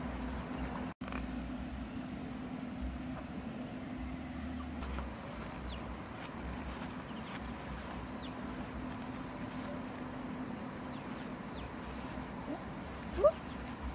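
Insects chirping and buzzing steadily in grassland: a high, continuous drone with short pulsed chirps every second or so. Near the end come a few short rising calls and one sharp, louder sound.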